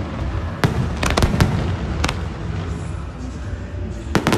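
Fireworks display: aerial shells bursting as sharp bangs, a quick cluster about a second in, another near two seconds and a pair near the end, over a continuous low rumble of more distant bursts.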